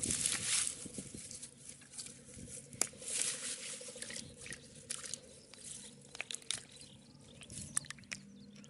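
Wet, squelching mud with scattered small clicks and pats, as hands work through the mud picking out snails.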